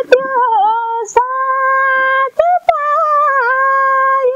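A woman singing a Nepali folk song (lok geet) unaccompanied, holding long notes with small ornamental turns, with short gaps between phrases about a second in and near the middle.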